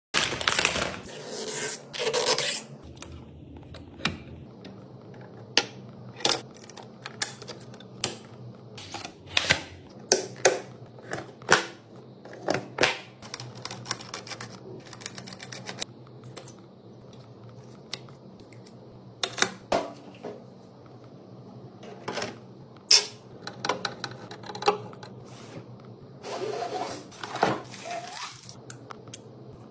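Computer parts being handled and fitted: irregular sharp clicks and knocks, some in quick runs, with a couple of longer rustling stretches, over a steady low hum.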